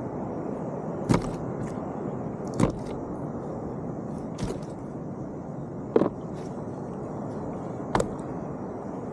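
About five sharp knocks and bumps on a kayak, spaced one to two seconds apart, over a steady background rush.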